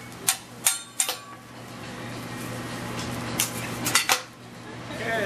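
A hibachi chef's metal spatula and utensils clacking against the steel teppanyaki griddle. Three sharp clacks come in the first second, then three more about three and a half seconds in, over a steady hiss.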